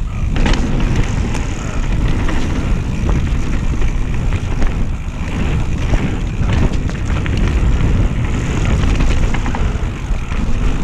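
Mountain bike descending a dirt trail at speed: wind buffeting the action camera's microphone as a steady low rumble, with tyre noise over the ground and frequent short knocks and rattles from the bike over the bumpy trail.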